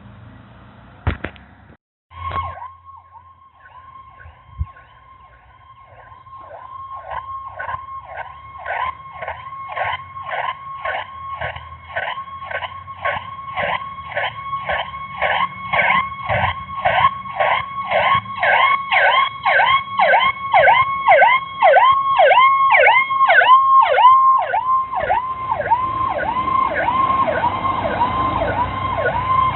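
Fire apparatus electronic siren sounding a fast yelp, about two to three sweeps a second, growing steadily louder as it approaches. Near the end a broader rushing noise joins it.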